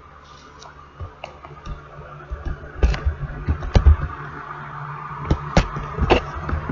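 Handling noise: rustling with scattered clicks and knocks, the loudest about three and four seconds in, over a steady low hum.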